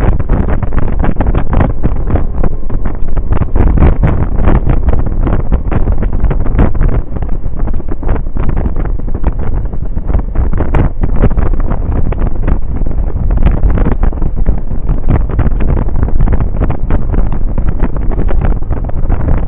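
Loud, gusty wind buffeting the microphone of a camera on a Suzuki Burgman 650 maxi-scooter at road speed, mixed with the rumble of riding.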